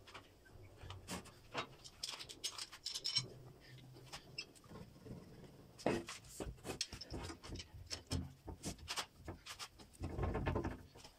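Wooden blocks knocking and clicking against each other and against a metal workbench as glued stem sections are stacked and pressed onto a base block, with a sharper knock about six seconds in and a scraping slide of the block across the bench top near the end.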